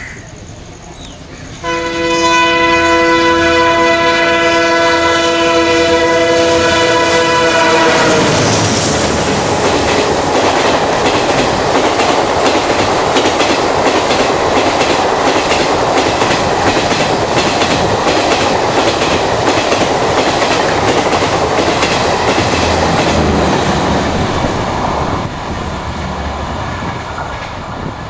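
WDM3D diesel locomotive sounding its horn in one long blast of about six seconds as it runs through at 115 km/h, the chord dropping in pitch as the locomotive passes. Then the express coaches rush past with a loud, rhythmic clatter of wheels on the rails, easing off a little near the end.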